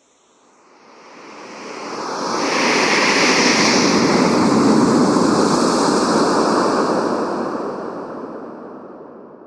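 Wind sound effect: a single gust of wind that swells from near silence, holds strong for a few seconds, then dies away. A higher whistling edge rises as the gust builds.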